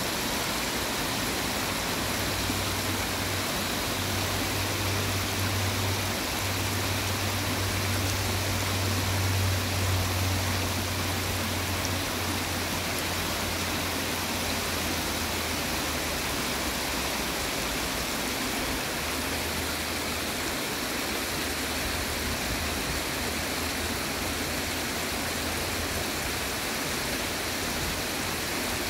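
Shallow stream water rushing and rippling over stepping stones and rocks, a steady even rush, with a low hum underneath for most of the time.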